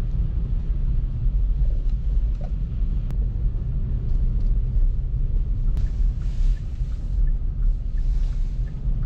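Steady low rumble of a car driving, heard from inside the cabin as it travels along a snow-covered road.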